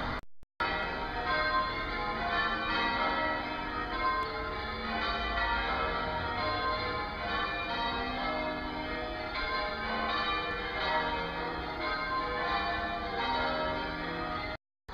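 Church bells ringing, many strikes following one another so their tones overlap in a continuous peal; it cuts off suddenly near the end.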